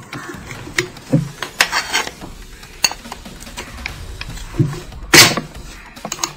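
Irregular metal clicks and clinks of a two-pin flange spanner engaging and turning the flange nut on an angle grinder's spindle, tightening a flap polishing wheel, with the loudest clack a little after five seconds.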